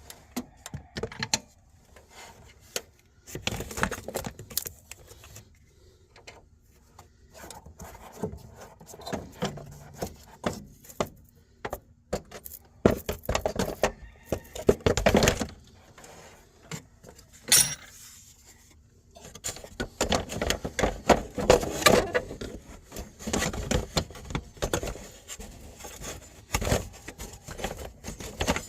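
Irregular metallic clinking, clattering and knocking of hand tools and parts being handled and set down while working on the engine bay, in bunches with short lulls between.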